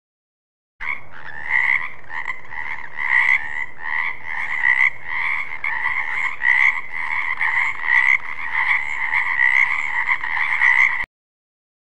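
Frog croaking in quick, repeated calls, starting suddenly about a second in and cutting off suddenly near the end.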